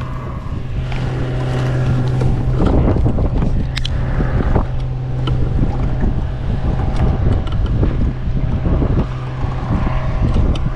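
Wind buffeting the microphone from about three seconds in, a loud uneven rumble; before that a steady low hum.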